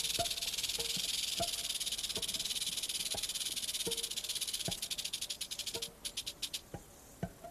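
Diamondback rattlesnake's tail rattle buzzing fast and steady as a defensive warning, then slowing to a few separate clicks and stopping about six seconds in.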